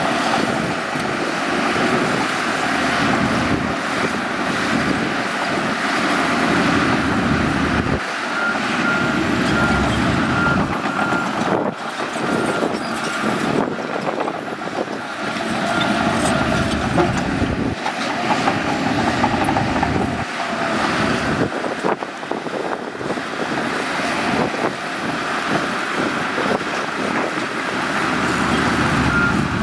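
Shantui bulldozer's diesel engine working under load, running steadily with surges in level. A reversing alarm beeps at a steady pitch for several seconds in the middle and starts again near the end.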